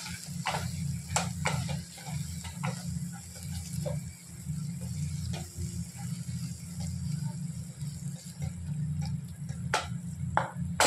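Wooden spatula stirring and mashing thick pav bhaji in a pan, with irregular soft scrapes and taps against the pan over a steady low hum.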